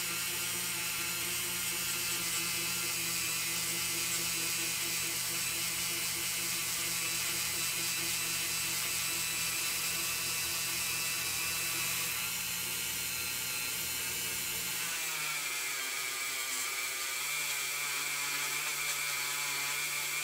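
Handheld rotary tool running steadily with a polishing wheel, buffing a zinc-plated diecast car body: a constant motor whine. Its tone shifts about fifteen seconds in, then holds steady again.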